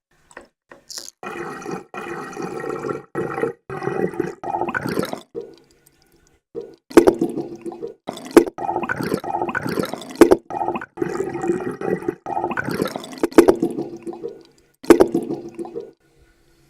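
Water sound effects: a run of short clips of splashing, gurgling water with some sharp drop-like hits, separated by brief moments of silence.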